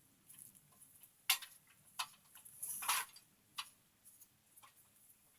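Metal parts of a steel miter saw stand being handled and fitted: several separate sharp clicks and a short scrape partway through.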